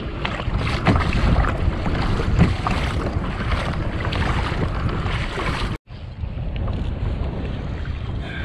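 Wind buffeting the microphone of a camera on a sea kayak, with choppy water splashing against the hull. The sound drops out for an instant about six seconds in.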